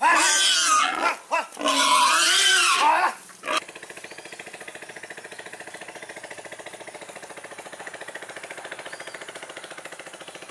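Domestic pig squealing in several loud, wavering cries as it is hauled by a cord snare on its snout. After about three and a half seconds the squeals stop, and a much quieter, fast, even pulsing sound carries on.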